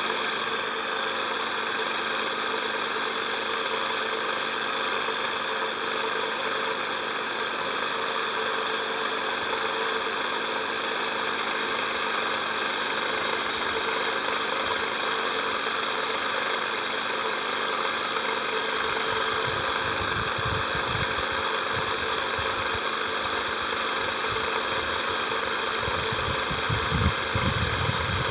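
Steady mechanical hum with hiss, with a few low rumbles in the last third.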